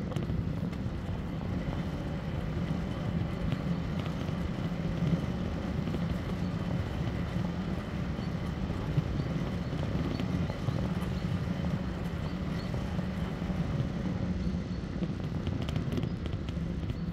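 A moving e-bike's riding noise: a steady low hum over an even rumble of tyres on the road, with a few faint ticks.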